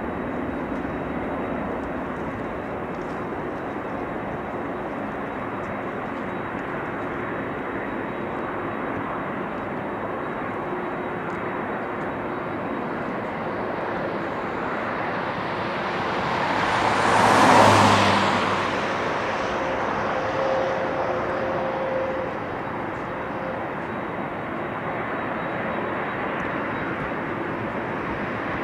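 Thai Airways Airbus A380's four Rolls-Royce Trent 900 turbofans at takeoff thrust, a steady distant jet rumble as the aircraft rolls and climbs away. A brief louder rushing swell rises and falls about two-thirds of the way through.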